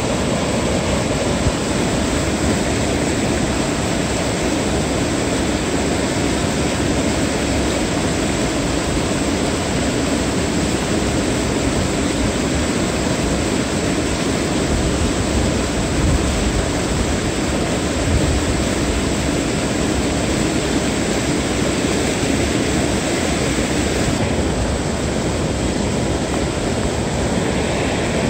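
Steady rush of river water churning over rocks as white water.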